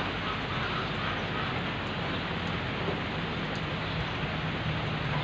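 Steady rain falling, an even hiss without breaks. A faint low hum runs underneath and becomes steadier about three seconds in.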